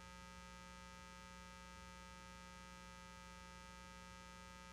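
Near silence apart from a faint, steady electrical mains hum made of several fixed tones.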